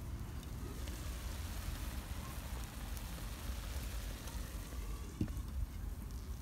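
Onions sizzling and simmering in a clay tagine over a wood fire, a steady hiss. A single light knock about five seconds in as the clay lid is set back on.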